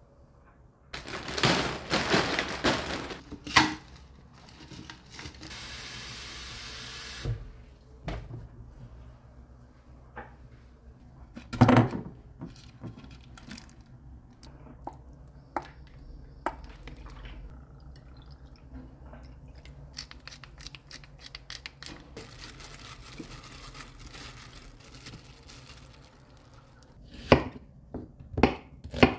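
Kitchen prep sounds: dishes and containers handled with clinks and knocks, and a few seconds of steady hiss about six seconds in. Near the end, a knife chops quickly on a bamboo cutting board.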